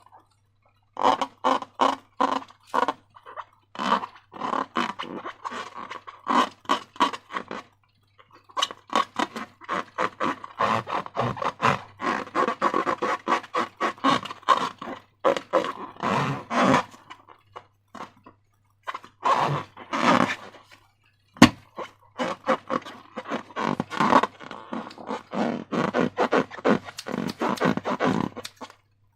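Slime being squished and squeezed by hand: rapid wet clicking and crackling in runs of several seconds, with short pauses between and one sharp click about two-thirds of the way through.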